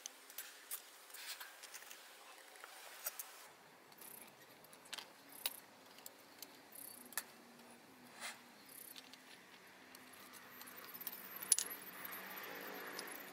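Small metal pieces clinking and clicking against each other now and then, with a few sharper chinks, the loudest near the end.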